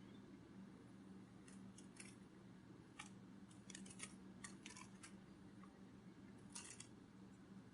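Near silence with a low steady hum and a dozen or so faint, irregular sharp clicks, a few of them coming in quick clusters, the loudest cluster near the end.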